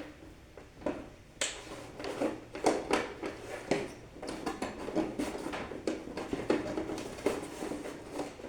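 Irregular clicks, knocks and short scrapes of hands working with electrical wiring and tools.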